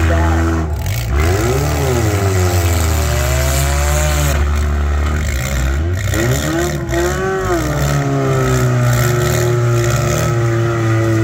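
Demolition-derby compact cars' engines revving hard, the pitch swooping up and down again and again over a steady low engine drone.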